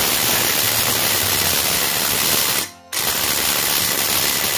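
A cordless impact wrench rated around 300 N·m hammers rapidly in reverse on a large nut. It runs in two long bursts with a short break between, and fails to break the nut loose.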